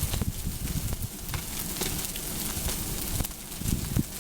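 Bonfire of burning rubbish crackling, with scattered sharp pops over a steady rush of flame.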